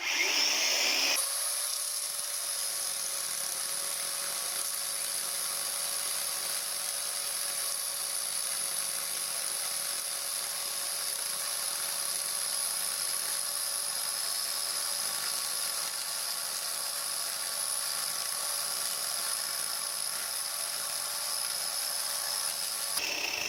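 16-inch electric chainsaw running steadily, a constant motor whine with the rattle of the chain; it starts abruptly and cuts off near the end.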